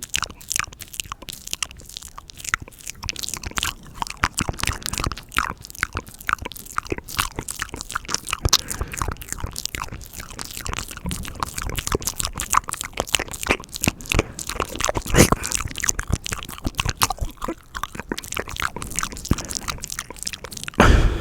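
Close-miked ASMR mouth sounds: a rapid, irregular run of wet clicks, smacks and crunchy pops right at the microphone, with a louder thump just before the end.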